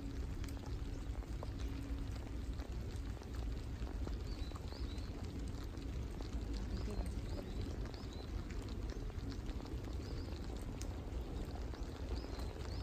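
Outdoor ambience: a steady rumbling hiss of wind on the microphone, with faint high bird chirps repeating every second or two from about four seconds in.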